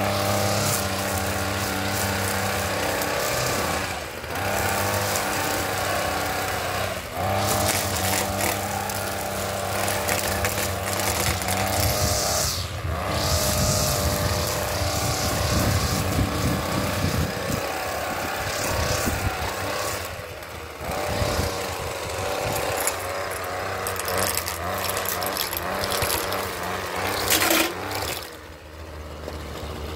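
Gas string trimmer running at cutting speed, the engine note dipping briefly several times as the throttle is eased, then dropping to idle near the end.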